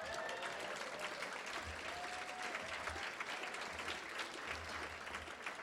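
Audience applauding: many hands clapping in a steady patter that eases slightly toward the end.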